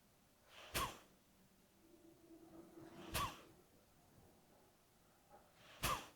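Three short, forceful exhalations blown out through the nose, about two and a half seconds apart: Kapalbhati pranayama strokes, each a sharp burst of breath driven by a snap of the abdomen.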